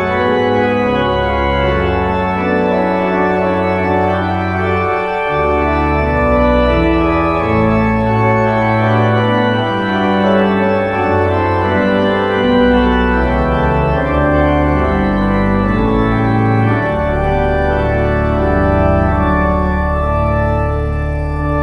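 Church organ playing slow, sustained chords over deep pedal notes, the harmony changing every second or two.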